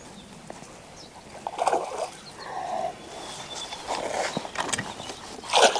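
A hooked bass splashing at the surface as it is played up beside a kayak, with scattered water noises and knocks and a louder splash near the end.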